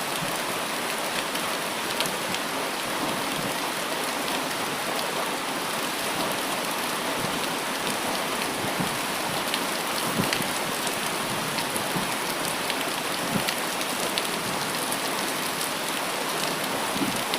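Steady rain falling on foliage and surfaces, with individual drops pattering close by.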